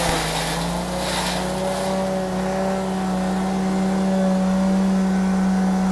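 Forage chopper driven by a small 6.5 hp stationary engine, running steadily at speed while shredding green corn stalks. The engine note sags briefly near the start as the stalks load it, and there are hissy bursts of chopping as the blades cut through the stalks in the first two seconds.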